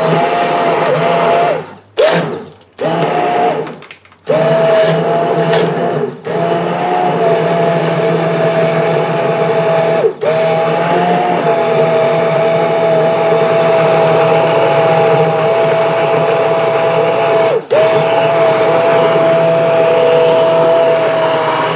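Handheld immersion blender running in a pot of cooked tomatoes, puréeing them into sauce. Its loud motor whine cuts off and restarts several times in the first four seconds, then runs steadily with short breaks about ten and eighteen seconds in as it is plunged through the sauce.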